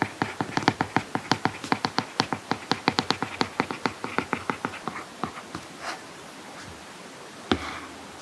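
Apple Pencil tip tapping and ticking on an iPad Pro screen fitted with a paper-feel protector while handwriting, in quick taps several a second. The taps stop about five seconds in, and one more sharp tap comes near the end.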